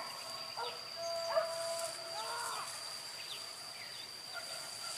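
Distant cries of a wild boar hunt carrying across the valley: short rising-and-falling calls and one long held call about a second in, over a steady high-pitched insect drone.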